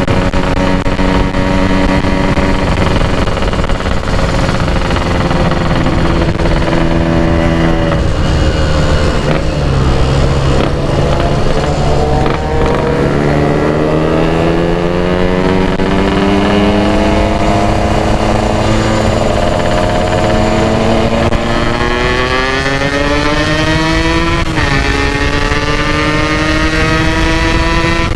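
Kawasaki Ninja 150 SS two-stroke single-cylinder engine on the move. Its note sags as the bike eases off about eight seconds in. It then climbs steadily for about twelve seconds, drops sharply at a gear change and carries on at a steady pitch.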